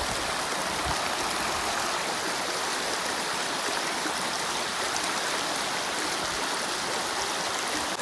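Shallow creek rushing steadily over rocks and a fallen log.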